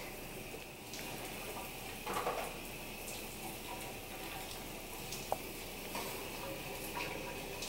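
Shower running steadily, the water spray making an even hiss. A short louder sound comes about two seconds in, and a sharp click a little after five seconds.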